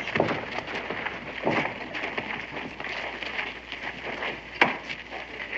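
Shuffling footsteps of a group walking across a dirt yard, a dense patter of scuffs and steps, with a sharp knock about two-thirds of the way through.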